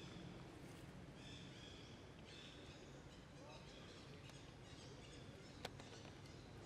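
Near silence: faint outdoor ambience with a few faint, short, high chirps and a single sharp click about five and a half seconds in.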